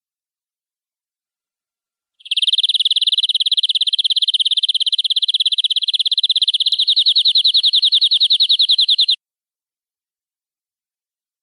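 Domestic canary singing one long, rapid trill of evenly repeated high notes. It starts about two seconds in and cuts off sharply after about seven seconds.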